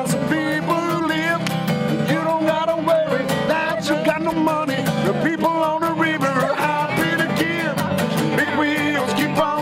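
A man singing a country song to his own strummed acoustic guitar, with steady, even strumming under the sung melody.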